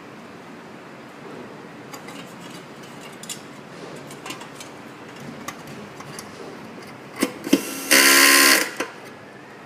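Small parts and tools clicking and tapping during a device repair, then about eight seconds in a short, loud motor buzz lasting under a second that cuts off suddenly.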